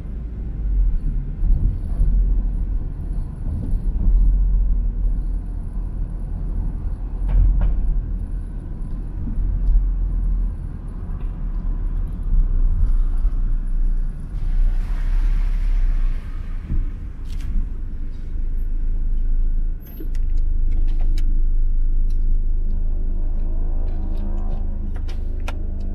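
Low engine and road rumble of a car being driven, heard from inside it, with a brief rush of hiss partway through. After a sudden break the sound becomes a steadier low engine hum with a few clicks, and music fades in near the end.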